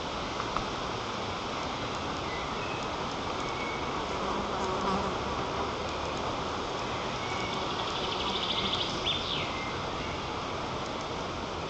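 Strong wind rushing steadily over a treetop nest camera's microphone. A brief high trill and a short falling whistle cut through it about two-thirds of the way in.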